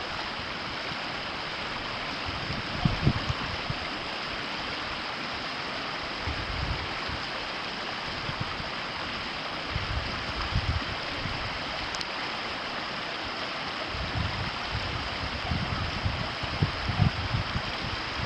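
Steady rushing of a river's flowing water, with a few irregular low rumbles about three seconds in, around ten seconds and near the end.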